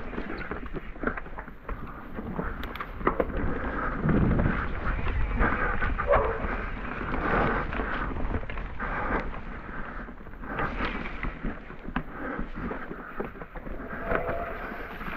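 Mountain bike riding down a wet trail: tyres rolling over muddy dirt, with the bike's frame and drivetrain rattling and knocking over bumps and a steady low wind rumble on the action camera's microphone.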